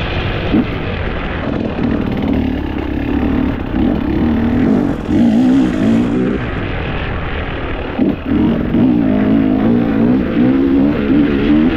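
Motor vehicle engine running under way, its pitch wavering up and down, over a steady low road-and-wind rumble.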